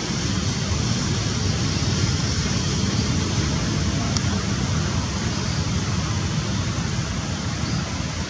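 Steady rushing wind noise on the microphone, heaviest in the low end and unbroken throughout.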